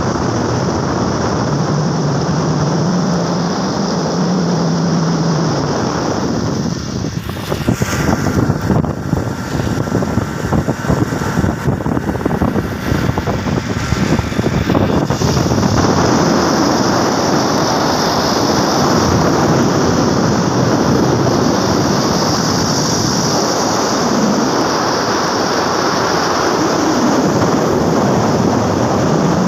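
Wind rushing over the microphone and road noise from a moving vehicle, a loud steady rush. It turns gusty and buffeting for several seconds in the middle.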